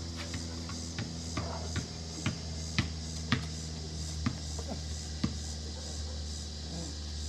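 A basketball bouncing on a concrete driveway: about nine sharp thuds at uneven intervals, falling off after about five seconds, over a steady low hum.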